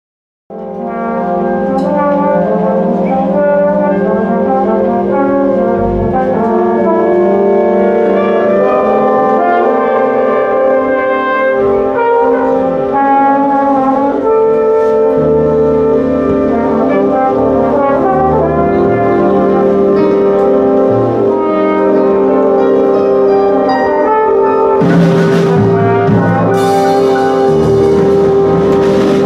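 A student big band playing a soundpainting improvisation: saxophones and brass hold long notes layered into dense chords, and a low bass part comes in about halfway through. Cymbal washes come in near the end.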